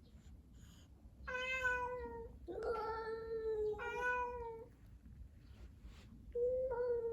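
Cat yowling: long, drawn-out, siren-like calls, each holding nearly one pitch and sagging slightly at the end, several in close succession from about a second in, then a pause and another long yowl starting near the end.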